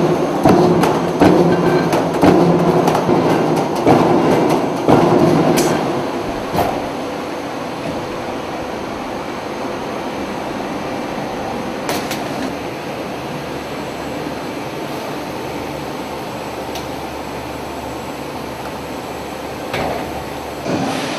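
Perforating press of a 1250C ceiling-tile perforation line stamping about once a second. After about six seconds it gives way to the steady running noise of the line, with one sharp click near the middle.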